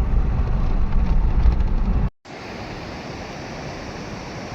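Wind buffeting the microphone with a loud low rumble for about two seconds. It cuts off abruptly and gives way to a steady rushing noise.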